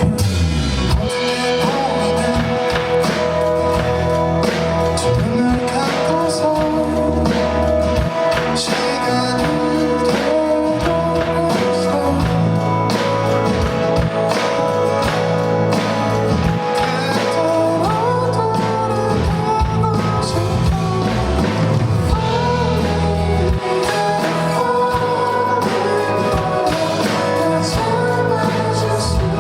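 A male singer performing a slow pop ballad live with a band: his voice over sustained bass and accompaniment.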